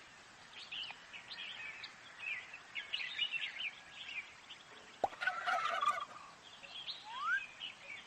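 Bird chirps, many short high calls over a soft hiss, with a louder warbling bird call about five seconds in and a single rising whistle near the end.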